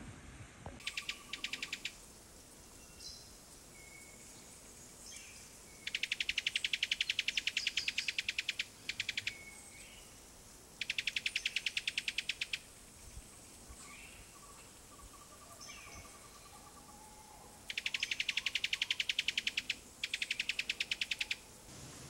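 Six trains of rapid dry clicks, about ten a second, each lasting one to two and a half seconds, with faint short whistled bird calls between them.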